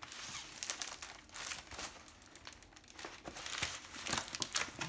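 Plastic packaging around a rolled diamond-painting canvas crinkling and rustling as it is handled and unwrapped, in an irregular run of small crackles.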